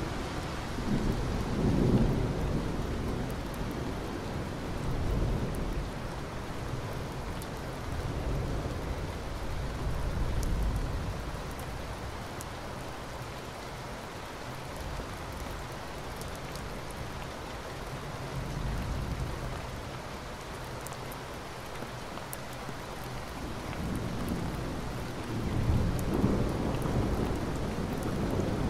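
Steady rain with low rolling rumbles of thunder that swell and fade several times, strongest near the end.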